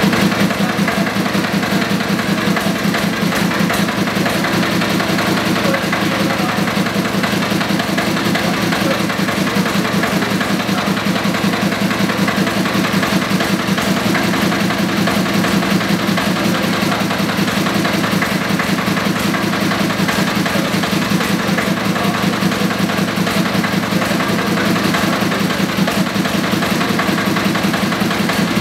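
Old stationary engine running steadily with an even, rapid beat.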